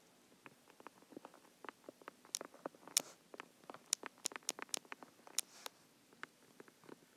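Stylus tip tapping and scratching on an iPad's glass screen during handwriting: an irregular run of quick sharp ticks, densest in the middle.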